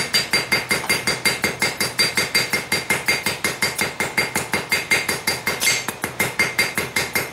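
Hand hammer striking a hot railroad-spike fork tine on a steel anvil in a fast, steady rhythm of about five blows a second, each blow ringing: rounding off the tine.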